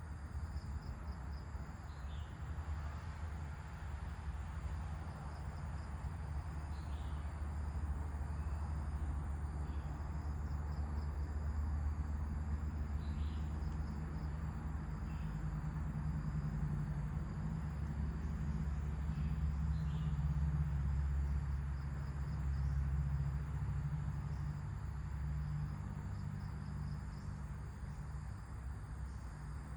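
Outdoor nature ambience: insects trilling steadily at a high pitch over a low rumble of wind that swells and eases, with a few short bird chirps every few seconds.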